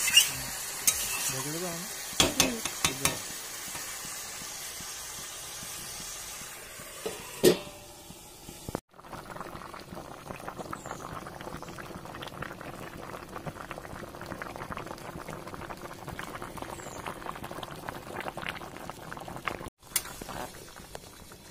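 Spiced turtle meat sizzling in a metal kadai, with a metal spatula scraping and clanking against the pan a few times. After a cut about 9 s in, the turtle curry, with water added, boils with a steady dense bubbling.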